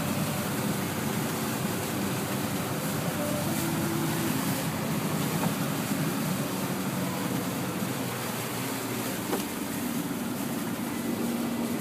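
A truck driving through floodwater over the road, heard from inside the cab: its engine running steadily under a continuous rush of water spraying and washing against the vehicle.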